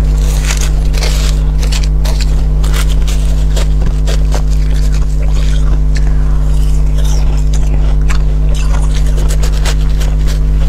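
Metal spoon scraping and digging into freezer frost on a ball of balloon ice, with crisp frost crunching as it is bitten and chewed. A loud steady low hum underlies it all.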